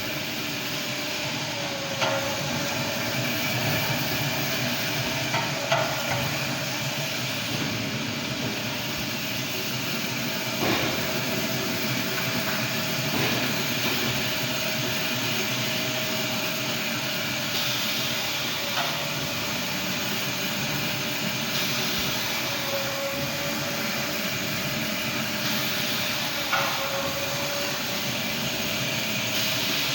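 Automatic towel cutting machine running steadily, a mechanical hum whose tone dips briefly every few seconds, with occasional sharp knocks.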